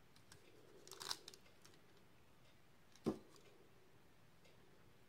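Faint crinkle of aluminium foil as a plastic bottle cap is pressed into paint on a foil-covered plate, about a second in, then a single sharp tap a little after three seconds. Otherwise near silence.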